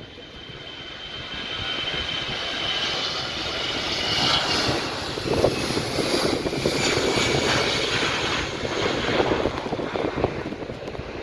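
Jet engines of a Boeing 777 airliner, swelling to a loud roar over the first few seconds and then holding steady, with a high whine that fades out about four seconds in.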